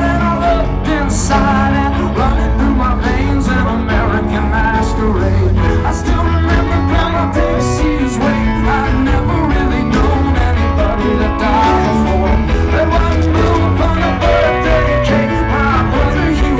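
Live rock band playing loudly, an instrumental stretch between sung lines.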